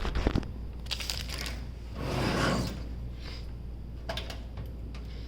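Handling noises as a motherboard is fitted into a PC case: a few light clicks and knocks, with a brief scraping rustle about two seconds in.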